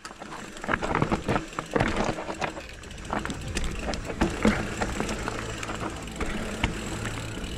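Specialized Kenevo electric mountain bike clattering down a steep, rough trail: tyres over stones and roots, with repeated sharp knocks from the chain and frame and a steady low hum underneath.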